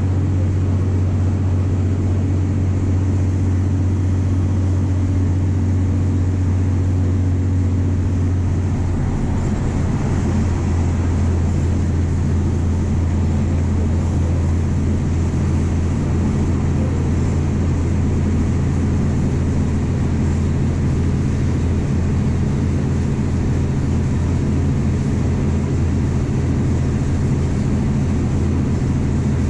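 MWM 6.12 TCE six-cylinder turbodiesel of a VW 17.230 EOD bus running under way, heard from inside the passenger cabin: a steady engine drone over road noise. The engine note shifts about nine seconds in.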